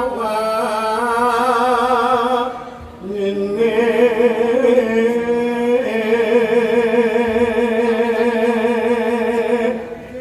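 Slow Javanese song: long held, wavering sung notes in two phrases, broken by a short pause about three seconds in.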